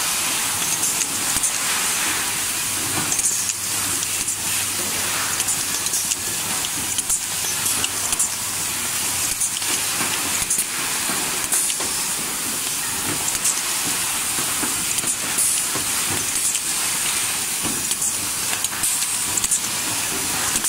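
Steady compressed-air hiss from pneumatic auto-feed blind rivet guns, with short sharp clicks at irregular intervals as rivets are set.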